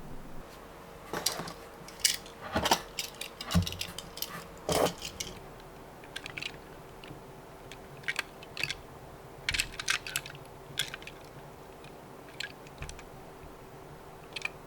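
Diecast toy minicars clicking and clattering as they are handled, irregular light knocks that are densest in the first five seconds and sparser after, over a faint steady hum.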